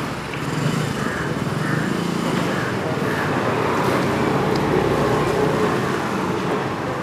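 Road traffic: a steady rumble of passing vehicles, swelling a little through the middle.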